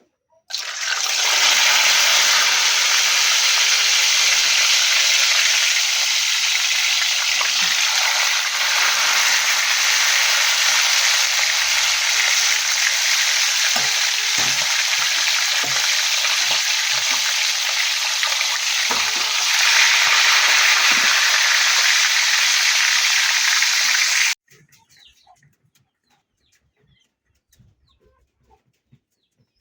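Food frying in a hot pan: a steady, loud sizzle that cuts off abruptly about 24 seconds in.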